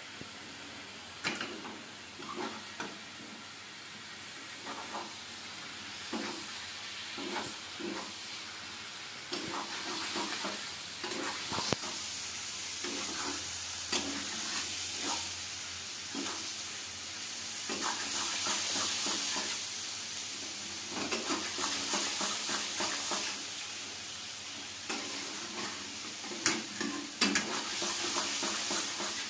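Mushrooms, onions and tomatoes sizzling in a metal kadai while a steel spatula stirs and scrapes them around the pan, with sharp clinks of the spatula against the metal coming in spells. The sizzle grows louder after the middle.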